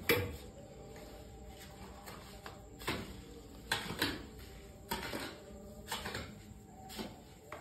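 A mason's trowel scraping and knocking against a plastic bucket as it scoops out mortar and spreads it on a concrete floor for laying tiles: a series of short, irregular scrapes and knocks, roughly one a second, the first the loudest.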